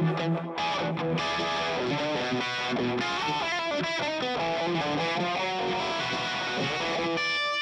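Telecaster-style electric guitar playing an instrumental solo of quick single-note runs, with the band behind it.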